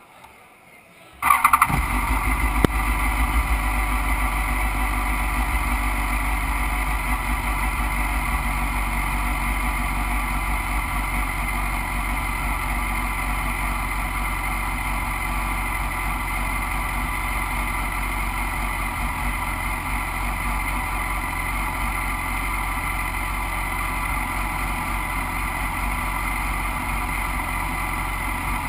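BMW racing motorcycle engine starting up about a second in, with a few sharp peaks as it catches, then running at a steady idle.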